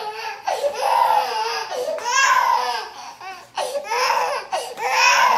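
Baby wailing in about four long, high-pitched cries with short gasps between them: a tired baby crying at bedtime for its mother.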